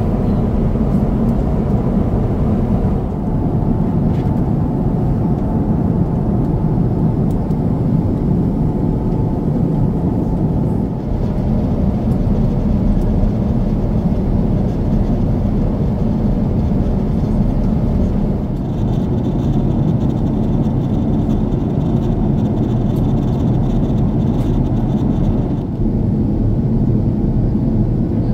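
Steady low roar of an Airbus A350-900 airliner in flight, heard inside the cabin: engine and airflow noise without a break.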